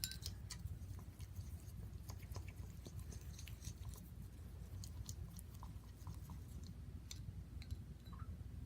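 Thick tacky-glue slime being mixed with activator, giving irregular sticky squelches and small crackling clicks as it begins to activate, over a low steady hum.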